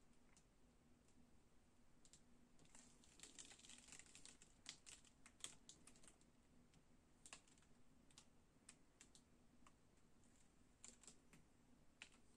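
Faint, scattered light clicks and taps from a stretched canvas being handled and tilted on its wooden supports, thickest in the first half. A low steady hum sits underneath.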